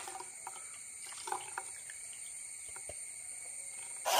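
Water and thin rice batter poured from a steel mixer-grinder jar, trickling through a mesh strainer into a bowl, with a few light clinks. Near the end a spoon starts stirring in the strainer.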